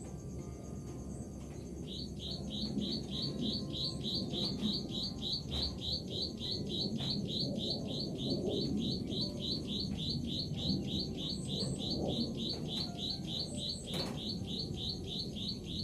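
A high chirping call repeated rapidly and evenly, about five or six chirps a second, pausing briefly near the start, over a steady low background noise.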